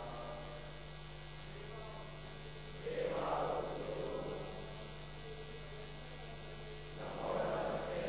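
Steady electrical mains hum from a microphone and sound system. A faint group of voices chanting swells about three seconds in and again near the end.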